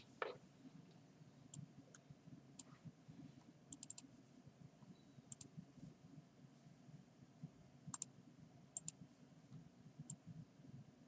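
Scattered sharp clicks of computer keys and mouse buttons, including a quick run of four about four seconds in, over faint low room hum.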